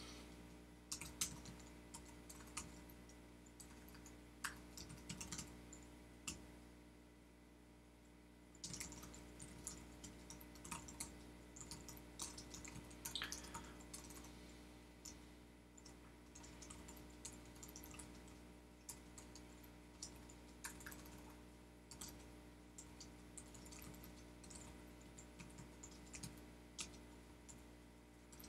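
Typing on a computer keyboard: irregular runs of soft key clicks with short pauses, including a lull of about two seconds a third of the way in, over a faint steady hum.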